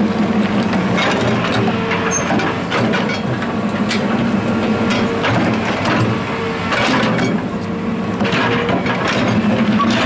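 Hitachi excavator's diesel engine running steadily under working load while the toothed bucket scrapes and crunches into earth and stones, with irregular cracks and knocks of rock against steel.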